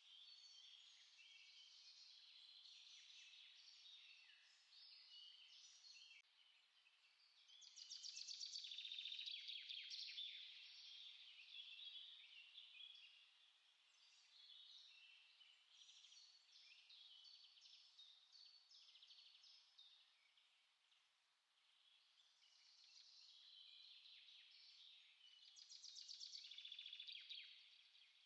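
Small songbirds singing in a continuous chorus of high chirps and trills. The chorus swells louder about a third of the way in and again near the end.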